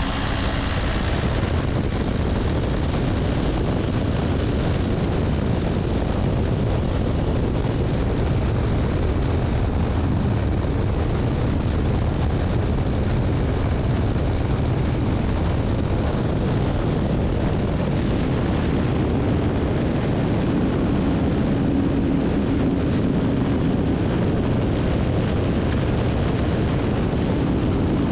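Cat 305.5E2 CR mini excavator's diesel engine running steadily, heard close up with no let-up, a low hum coming up briefly about two-thirds of the way through.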